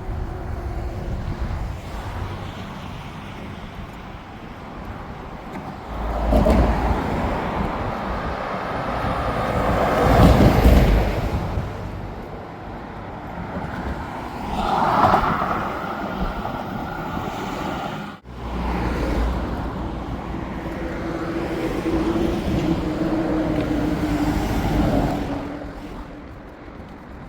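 Road traffic: vehicles passing one after another, the sound swelling and fading as each goes by, the loudest about ten seconds in.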